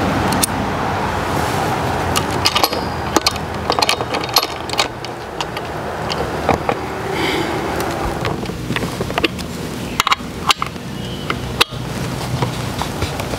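Saw chain clinking and rattling as a 20-inch Stihl light bar and chain are handled and fitted onto a chainsaw power head by hand, with many scattered sharp metallic clicks over a steady low hum.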